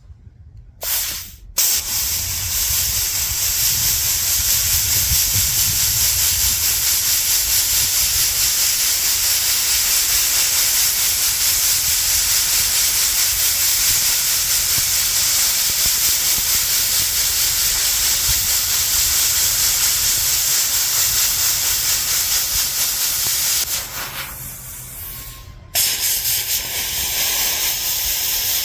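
Miller plasma cutter hissing as it cuts through rusty steel: a short burst about a second in, then a long steady hiss that weakens near the end, cuts off for a moment and starts again.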